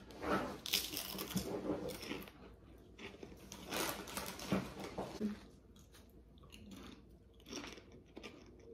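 Prawn cocktail potato crisps being bitten and crunched in the mouth, in three spells of crunching with quieter chewing pauses between.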